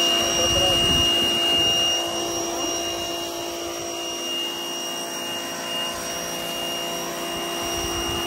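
Spear & Jackson 2200 W electric pressure washer running under load, its motor and pump giving a steady whine while the water jet sprays hard onto paving slabs.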